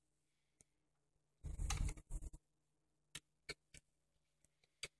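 Quiet room tone with a short knock and rustle about a second and a half in, followed by a few separate sharp clicks.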